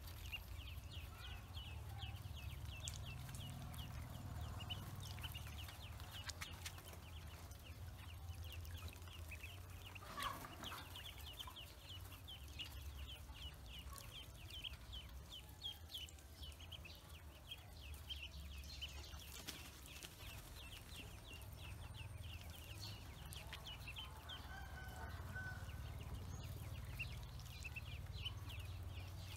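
A group of ducklings peeping without pause, many short high calls a second, over a low rumble. One brief louder sound about ten seconds in.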